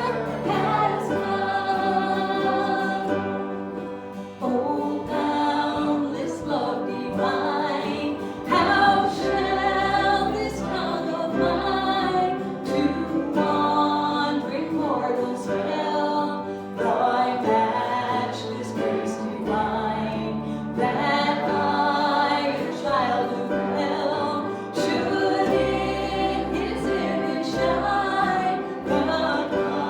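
Congregation singing a hymn together, backed by instrumental accompaniment with held bass notes.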